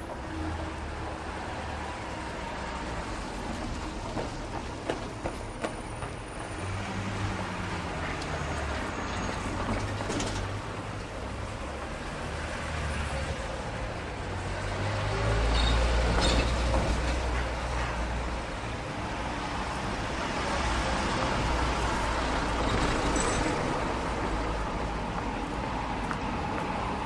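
City street traffic: a steady wash of passing vehicles, with a low engine rumble that swells to its loudest about halfway through as a heavier vehicle goes by. Footsteps on pavement, with a few sharper taps about five seconds in.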